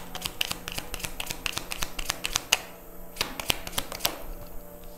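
Tarot cards being shuffled by hand, a quick run of sharp card snaps and slaps that stops about four seconds in.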